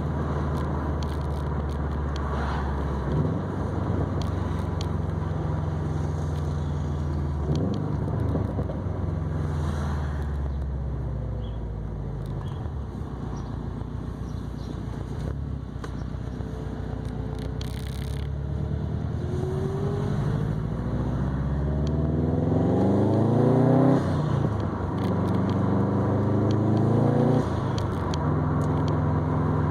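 2020 Subaru WRX STI's turbocharged flat-four engine, breathing through an ETS non-resonated catback exhaust and a Grimmspeed catted downpipe, cruising at a steady note. Partway through, the pitch drops as the driver eases off. Then it rises in a long climb under acceleration, falls suddenly at a gear change, and falls again at a second shift a few seconds later.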